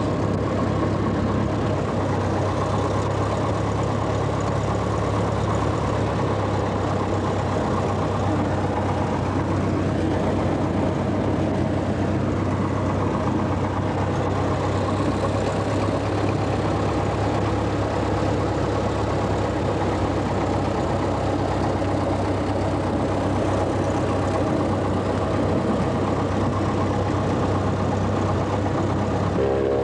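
Single-engine light aircraft's piston engine and propeller running steadily at low power, heard from inside the cabin as a constant, even drone.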